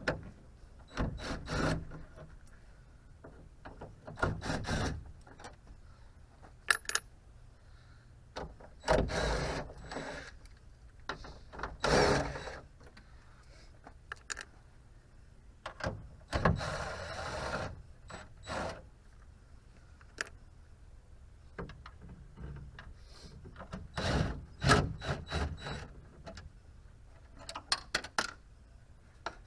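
Hand-tool work loosening the 10 mm bolts that hold a C4 Corvette headlight assembly: short bursts of mechanical clicking and rattling, about half a dozen of them, with scattered sharp clicks and knocks of metal between them.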